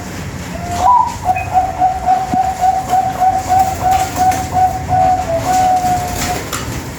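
Zebra dove (Bangkok-type perkutut) song: a short rising note about a second in, then a long run of rapid, evenly spaced coos at one pitch, ending in a longer held note near the end.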